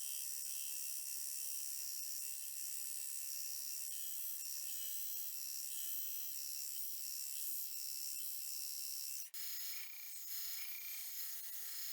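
Steady high-pitched buzzing made of several whining tones, with nothing low in it. It breaks off abruptly about nine seconds in and goes on as a similar high, warbling buzz.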